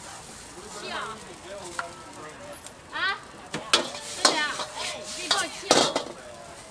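Metal ladle scraping and clanking against a wok while noodles are stir-fried, over a steady sizzle of frying. The clanks come irregularly, several sharp ones in the second half.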